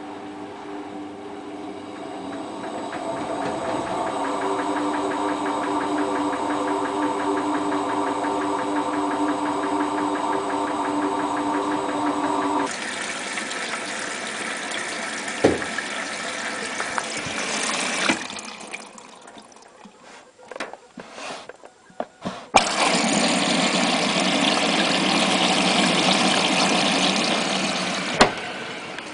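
Hotpoint Ultima WT960 washing machine running: a steady motor hum with a whine that swells and then cuts off abruptly, followed by a few clicks and, after a lull, a loud steady rushing hiss lasting about five seconds.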